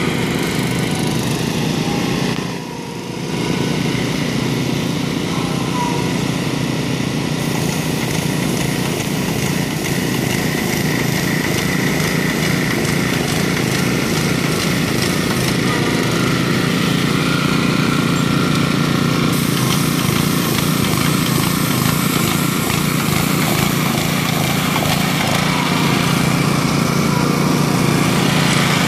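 Small engines of a Graco LineLazer 3900 line striper and the ride-on unit pushing it, running steadily while the machine paints. The sound dips briefly about two and a half seconds in.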